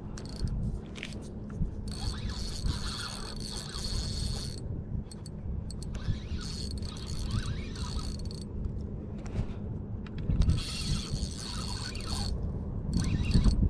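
Spinning reel being cranked to bring in a hooked fish, its gears and line making a scraping mechanical whirr that comes and goes, over a low rumble.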